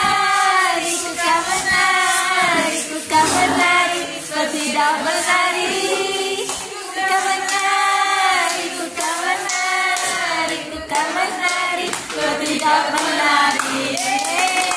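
Voices singing a song together over music, with hand claps.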